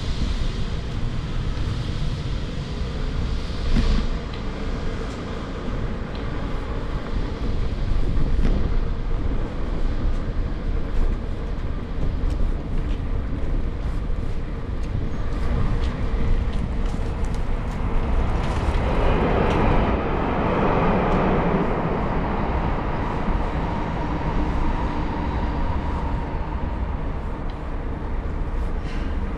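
Street noise heard from a moving bicycle: a steady low rumble with scattered faint clicks, and a vehicle passing close by that swells and fades about two-thirds of the way through.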